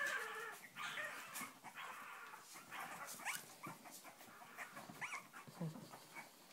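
A litter of Cavalier King Charles Spaniel puppies whimpering: a string of short, high-pitched cries that slide up and down in pitch, loudest at the start.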